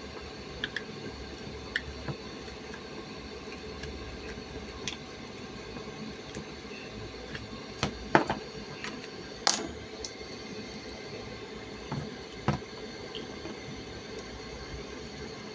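Scattered light clicks, clinks and knocks of small hard objects being handled, over a steady low hum. The sharpest come about eight, nine and a half and twelve and a half seconds in.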